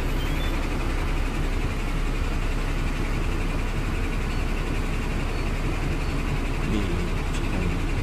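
Samsung air purifier's fan running steadily, a low rumble under an even whooshing hiss, as it works normally on power from a pure sine wave inverter.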